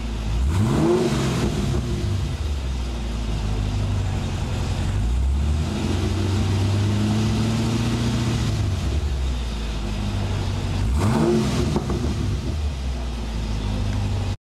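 A 2010 Camaro SS's 6.2-litre V8 idling through ARH headers and aftermarket exhaust, blipped sharply twice, about half a second in and again about 11 seconds in, the revs rising and dropping back quickly each time. In between, the revs are raised gently and held for a few seconds before settling back to idle.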